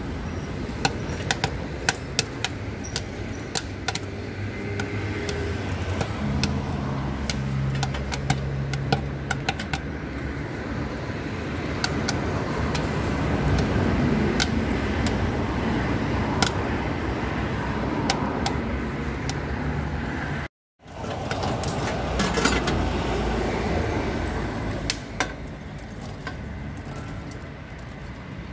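Corn popping in the steel kettle of a cart-style popcorn machine: sharp pops come thick and fast at first, then thin out as the batch finishes, with the kettle full and overflowing. Steady background noise with road traffic runs underneath, and the sound breaks off briefly at an edit about two-thirds of the way through.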